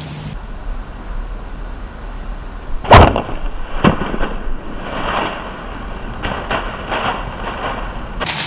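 A bow shot at a whitetail deer: one sharp, loud crack about three seconds in, then a second sharp crack under a second later, followed by a scatter of rustling in dry leaves as the hit deer runs off.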